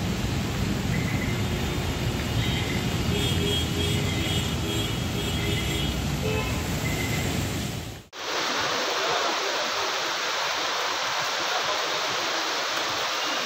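Steady rush of heavy rain and water flowing over a flooded road. The noise is deep and heavy at first, with faint thin tones in the middle. After a sudden break about eight seconds in it turns to a brighter hiss.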